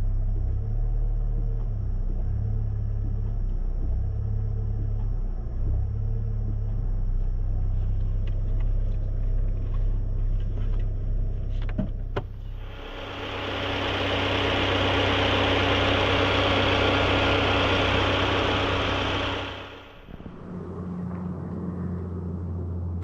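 Alfa Romeo 147 1.6 Twin Spark engine running with a steady low rumble, while the engine is making an abnormal noise that the owner suspects comes from the compressor, with the timing belt also in doubt. A few sharp clicks come about halfway through, then a loud rushing hiss for about six seconds before the low rumble returns.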